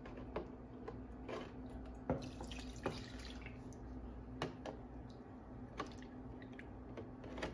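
Milk poured from a plastic jug into a plastic measuring cup and tipped into a saucepan, quiet trickling with scattered light taps and clicks of the cup and jug. A faint steady hum underneath.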